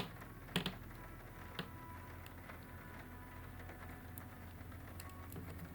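Small plastic LEGO pieces being handled and pressed together: a few soft, sparse clicks and taps, the sharpest right at the start, over a faint low hum.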